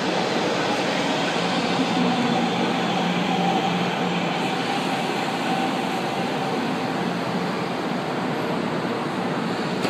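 São Paulo Metro K-fleet train K03 pulling into an underground station platform: steady rumble and running noise of the train with a faint steady hum, echoing in the station box.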